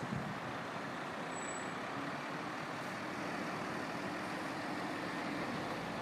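Heavy diesel lorry engine running steadily under a constant rush of noise.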